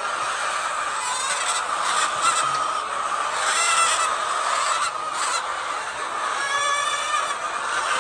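A flock of domestic hens calling all at once in a poultry house, a steady dense din. Single louder drawn-out calls stand out about halfway through and again near the end.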